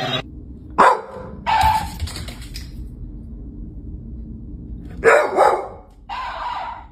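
A dog barking in two short bouts a few seconds apart.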